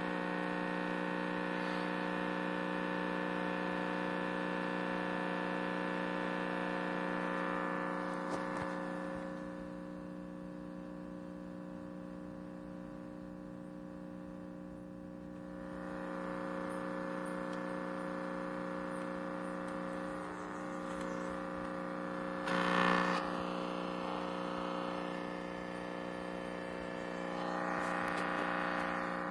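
Philips R17T530 valve television's loudspeaker giving out a steady buzz made of several fixed tones, dropping in level for a few seconds in the middle.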